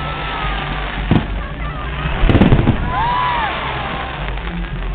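Aerial fireworks bursting, with one bang about a second in and a louder cluster of bangs around two and a half seconds in.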